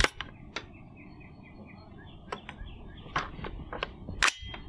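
Metallic clicks and clacks of a CMMG Anvil 458 SOCOM rifle being handled: a sharp click as the magazine is seated, a scattering of lighter clicks, and one sharp clack a little after four seconds. Birds chirp faintly in the background.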